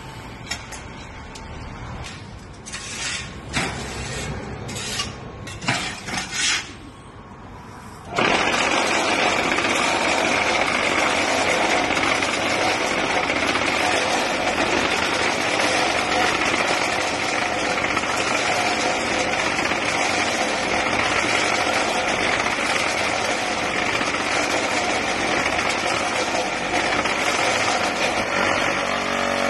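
QT4-24 brick-making machine at work: a few scattered clanks and knocks, then about eight seconds in a loud, steady mechanical running noise with a high whine starts suddenly and keeps going.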